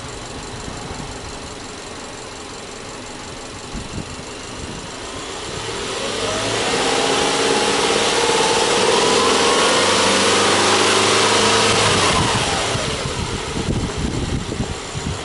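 Subaru Legacy B4's 2.5-litre flat-four boxer engine idling, then free-revved while the car stands still. About five seconds in, the revs climb over a couple of seconds, are held high for about five seconds, then drop back to idle.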